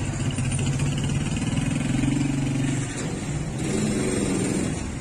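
Small motorcycle engine running at low speed close by, its note rising briefly about two seconds in and dropping back at about three seconds.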